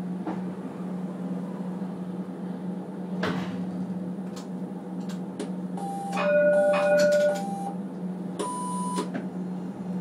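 Steady hum inside a tram standing at a stop, with a few clicks. About six seconds in, a short multi-note electronic chime sounds, then a half-second electronic beep near the end: the tram's signals before it pulls away.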